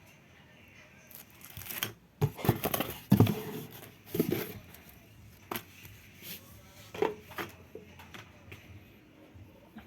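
Handling noises: rustling with a cluster of knocks and clatters between about two and four and a half seconds in, then a few scattered knocks.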